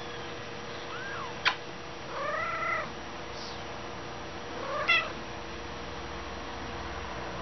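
Young Persian kittens mewing: a faint short mew, then a longer arching mew about two seconds in, and a rising mew just before five seconds in. A sharp click about a second and a half in.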